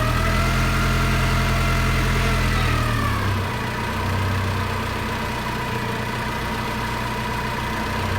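Nissan 3-ton forklift engine running steadily at idle, with a higher whine over it. About three seconds in, the whine fades and the engine note drops a little.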